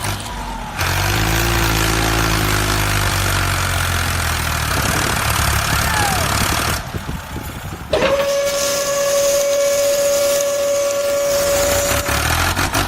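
A vehicle-like engine rumble with a hiss over it, then, about eight seconds in, a long steady whistle tone that holds to the end.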